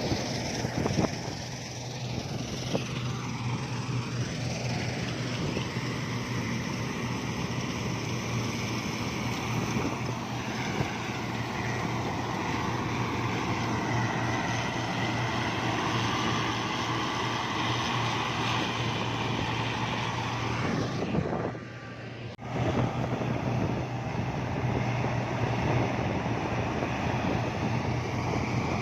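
Engine of wheat-harvest farm machinery running steadily with a constant low hum, briefly dropping away about three quarters of the way through.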